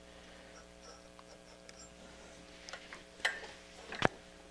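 A few small clicks and taps of metal test probes being set on the pins of an amplifier circuit board, the sharpest about four seconds in, over a faint steady hum.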